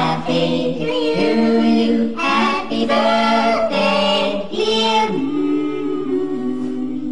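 Vocal music: a group of voices singing slow, long held notes with little or no instrumental backing.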